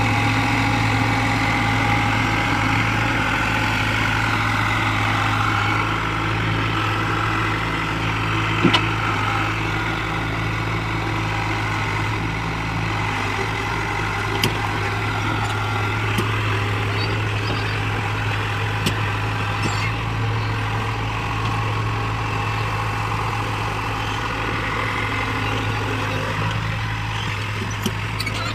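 Heavy vehicle engine running steadily at idle with a deep, even hum, and a few short knocks, one of them standing out about a third of the way in.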